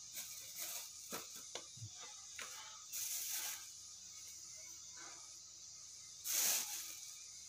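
Kitchen knife working food by hand: a few light clicks and taps in the first two seconds, then two short scraping hisses, about three seconds in and the louder one near the end, over a steady high-pitched background hum.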